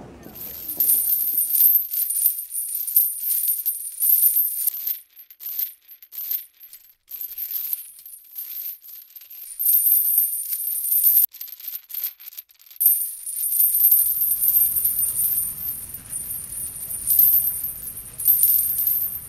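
High, metallic tinkling and jingling, coming in spurts with short breaks.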